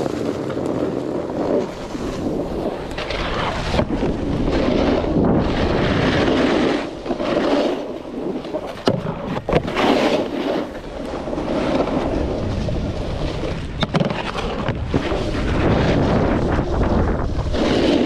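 Snowboard sliding and scraping over packed snow with wind rushing over the microphone, the scraping swelling and easing with the turns. A few sharp knocks land about halfway through.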